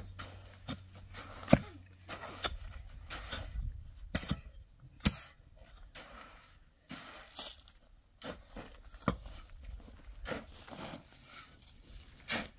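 Irregular knocks and clicks, a second or more apart, the loudest about one and a half seconds in, between stretches of soft scraping or shuffling noise.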